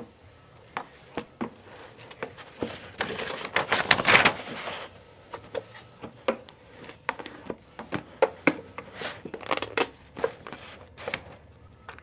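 Printed vinyl wrap film being handled and smoothed onto a mini fridge's front: rubbing and rustling of the film with scattered light taps and clicks, and a longer stretch of rubbing about three to five seconds in.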